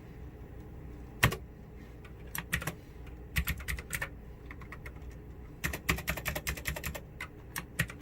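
Keys of a Pictek TKL mechanical keyboard clicking as they are pressed in short runs, with one louder click about a second in and a quick flurry of presses in the second half.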